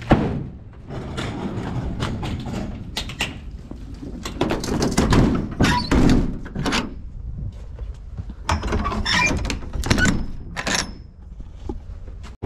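Rear ramp door of an enclosed cargo trailer being swung shut and latched: a loud thud about as it closes, then a run of clanks, knocks and rattles from the latch hardware.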